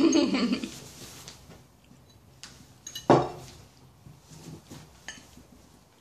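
Metal fork clinking and scraping against a ceramic plate while cutting up food, with a few sharp clinks; the loudest comes about three seconds in.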